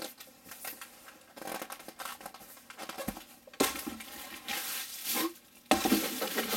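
Clear plastic wrapping and packing material rustling and crinkling as a wrapped bottle is pulled out of a box, louder in two stretches in the second half.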